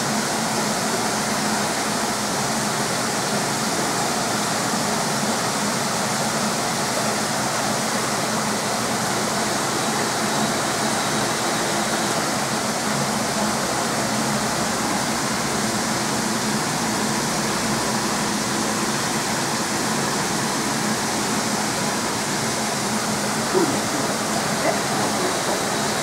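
Steady rush of running water and aeration, with a faint low hum under it. Two small knocks near the end.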